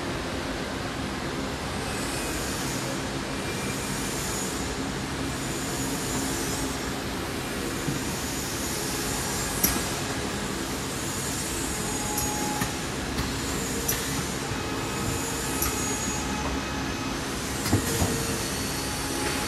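Bag-in-box flake weighing and filling machine with a vibrating net weighing scale, running steadily with a mechanical hum. Several sharp clicks and knocks sound over the hum, the loudest about ten seconds in and two close together near the end.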